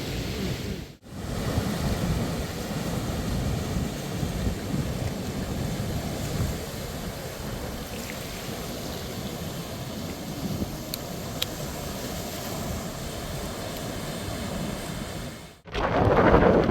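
Ocean surf: a steady rush of waves with wind on the microphone. The sound cuts out briefly about a second in and again near the end, after which louder wind buffeting comes in.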